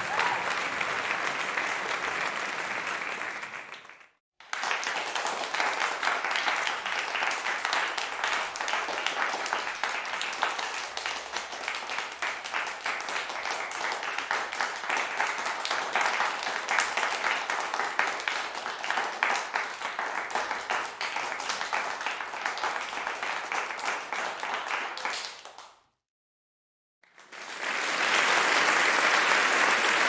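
An audience applauding and cheering, fading out about four seconds in. After a brief break comes a stretch of applause with many distinct claps, lasting about twenty seconds and then fading. After a second of silence, another round of applause swells up near the end.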